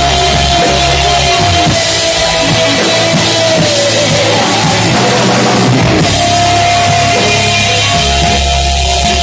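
Live heavy rock band playing loud: electric guitar, bass guitar and drum kit, with a long held note that bends down in pitch midway and comes back up.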